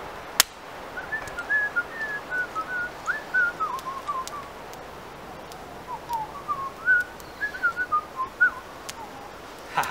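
A man whistling a made-up tune in two short melodic phrases, the second beginning about six seconds in. A single sharp snap sounds just after the start.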